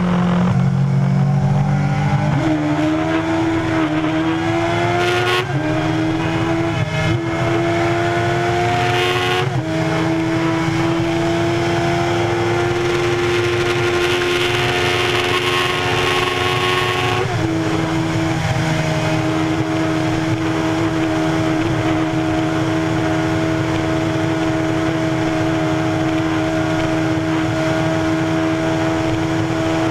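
Honda CBR1100XX Super Blackbird's inline-four engine held at high revs at about 300 km/h, a steady engine note under heavy wind noise. The pitch steps up slightly about a third of the way in and drops back slightly a little past halfway.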